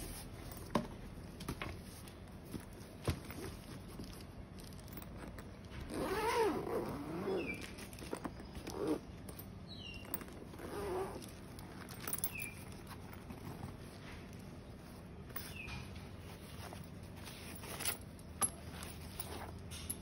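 Hands handling a fabric knife bag on plastic wrap: rustling, a few sharp clicks, and its zip being pulled open. Twice, about six and eleven seconds in, a wavering animal-like call sounds over the handling.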